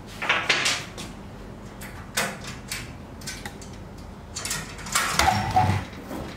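Metal clattering and scraping as the CNC router's aluminium rail and steel leg frame are handled and shifted into place. There are three bursts, the longest and loudest near the end with a short squeak.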